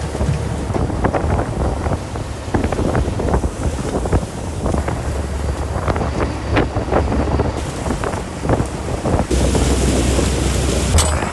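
Wind buffeting the microphone on a small fishing boat at sea, with waves and splashing against the hull and scattered knocks throughout.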